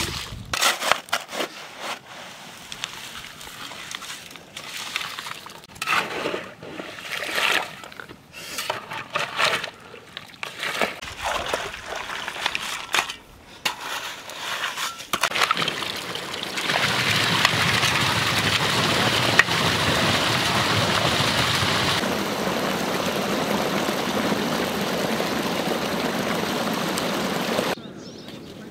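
A spade chopping and scraping into wet soil at an irrigation ditch bank, with clods and mud splashing into the water. About halfway through, a louder steady rush of muddy water flowing through the ditch takes over and cuts off abruptly near the end.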